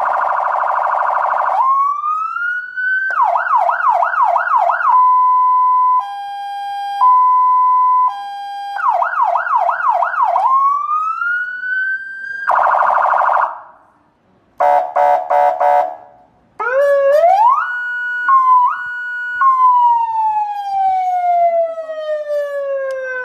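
A 100-watt electronic police siren stepping through its tones. It opens with a buzzy horn blast, then rising wails, a fast yelp of about three sweeps a second, and a two-note hi-lo. A second horn blast follows, then a brief gap, a pulsing tone, quick rising sweeps, and near the end a long, slowly falling wail.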